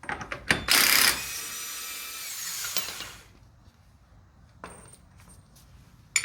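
Impact wrench hammering on a 36 mm front axle nut torqued to 175 ft-lb, breaking it free. It then spins on for about two more seconds, its pitch falling before it stops about three seconds in. A couple of short metal clicks follow.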